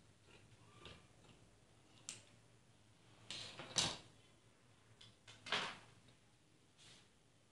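Cloth rustling in a few short swishes as a piece of fabric is lifted and moved, the loudest about four seconds in and again about five and a half seconds in.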